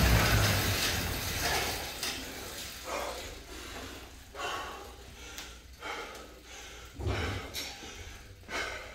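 Assault air bike's fan whooshing as it spins down and fades out over the first two seconds, then hard breathing in heavy gasps about every second and a half, the panting of someone just off an all-out sprint.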